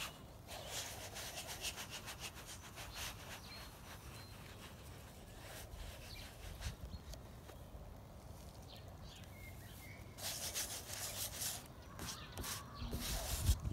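Bare hands rubbing and smearing paint across a stretched canvas, a dry scratchy swishing in strokes. The strokes come in a run at the start and again in the last few seconds.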